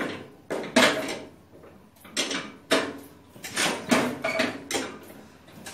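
Farmall Super A's four-cylinder engine being turned over cold with the hand crank, an uneven series of short puffs and clunks, about one or two a second, without catching.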